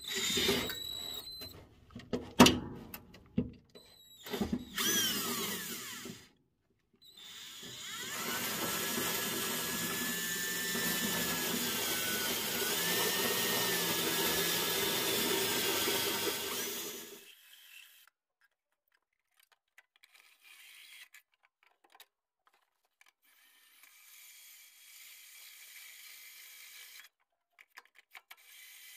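Power drill driving a metal hole saw through the old steel firewall of a 1948 Ford F5, taken slowly. A few short spurts and spin-ups come first, then a steady cut of about nine seconds with the motor's whine wavering under load, then only faint handling sounds.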